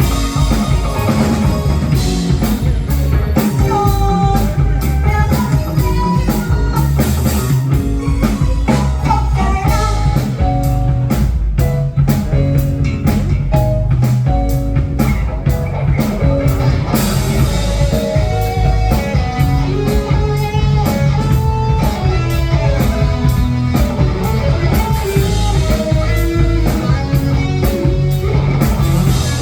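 Live rock-funk fusion band playing: electric guitar carrying a melodic line of changing notes over bass, drum kit and keyboards, with a steady beat.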